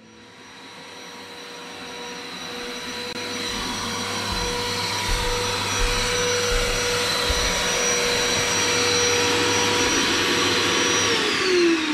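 Shop vacuum running steadily with a high motor whine as its hose sucks up fine sanding dust. It gets louder over the first few seconds, and about a second before the end it is switched off and the whine falls in pitch as the motor spins down.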